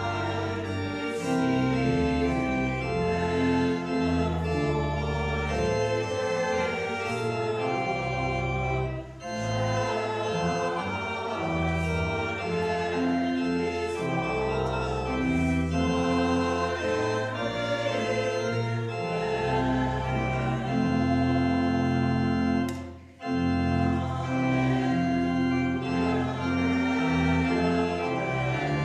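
Church organ playing a hymn in held chords that change every second or so, with a brief break about nine seconds in and another about 23 seconds in.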